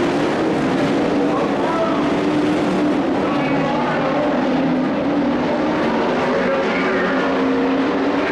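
Engines of several compact pickup race trucks running at speed around a dirt oval: a steady mixed engine drone whose pitches rise and fall a little as the trucks pass.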